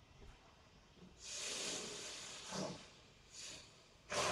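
Faint rustling hiss in three short bursts, the first and longest starting about a second in.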